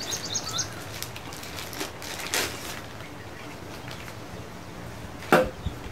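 A bird's rapid trill ending in the first half-second, then quiet handling of paper booklets: a rustle about two seconds in and a sharp tap near the end.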